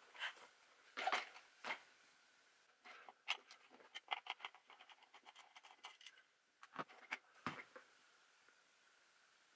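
Handling noise of an RC truggy's foam-filled rubber tire and plastic wheel being squeezed and turned in the hands: irregular rubbing, scratching and light clicks, with a couple of duller knocks about seven seconds in.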